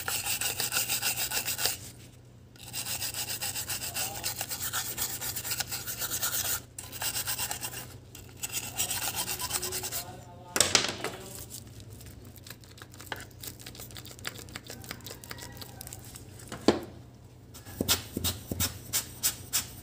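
Rough rubbing or scraping strokes, about four a second, in bursts that stop and restart several times and grow quieter in the middle, with sharper separate strokes near the end. A low steady hum runs underneath.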